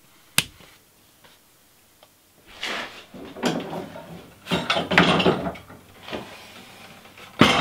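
A wall light switch clicks once. A couple of seconds later comes a run of wooden knocks and rubbing as a glued-up laminated paddle blank is handled and lifted out of a rack of bar clamps, with a sharp knock near the end.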